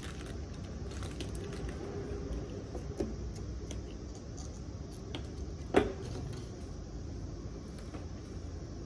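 Light clicks and rattles of a motorcycle fuel pump assembly and its wiring being worked out of the fuel tank opening, with a small knock about three seconds in and a louder knock just before six seconds in, over a steady low hum.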